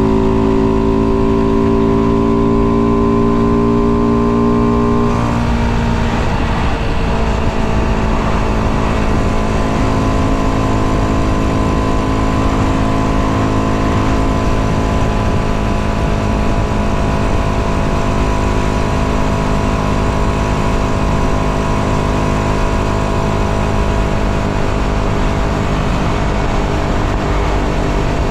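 Tuned 125cc engine with modified intake and exhaust and ignition advanced to 42 degrees, pulling under way with its note climbing slowly. About five seconds in the even note breaks up, then settles into a steady cruise under a rush of wind and road noise.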